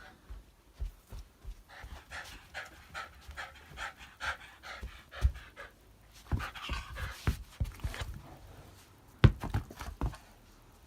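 Shiba Inu panting rapidly, in two runs of about four breaths a second, with a few low knocks, the loudest about nine seconds in.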